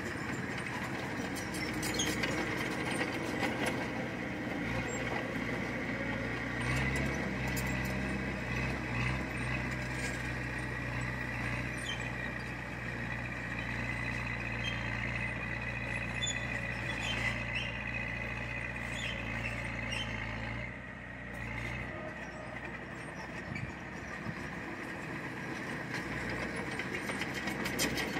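Heavy diesel machinery working. A low engine note holds steady from about five seconds in until about twenty-one seconds, over constant mechanical noise with scattered clicks and clanks.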